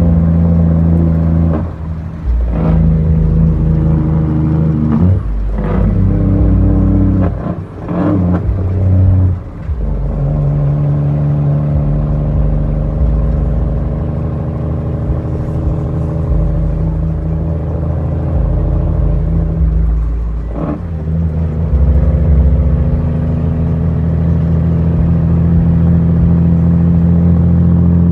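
International 9200's Cummins M11 inline-six diesel pulling the truck along, heard from inside the cab. The engine note breaks and changes pitch several times in the first ten seconds and once more about twenty seconds in, as gears are shifted, then holds steady.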